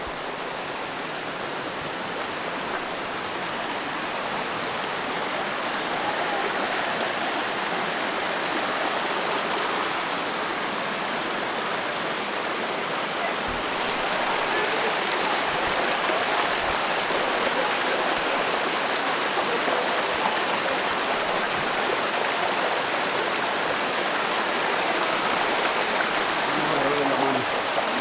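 Mountain creek water rushing over rocks: a steady rush that grows a little louder over the first several seconds.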